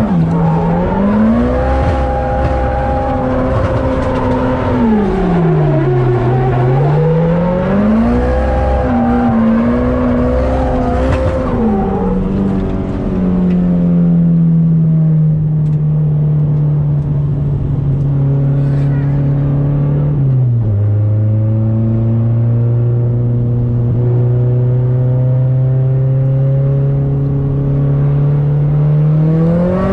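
Nissan Silvia S15 drift car's engine heard from inside the cabin, its revs swinging up and down repeatedly while drifting for about the first twelve seconds. It then settles into a steadier drone, which drops in pitch at a gear change about twenty seconds in and slowly climbs again.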